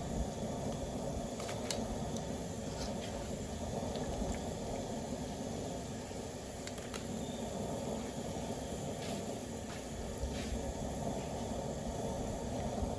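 A steady low rushing noise with a few light clicks scattered through it.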